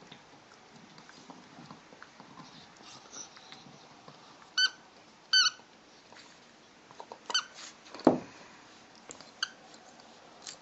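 A dog making short, high-pitched squeaky whines, four or so yelps spaced a second or two apart, with a sharp knock about eight seconds in.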